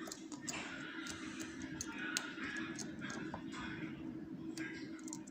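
Small metal clicks and scratches of a lock pick working in the keyway of a pinned rim cylinder lock, scattered irregularly over a steady low hum.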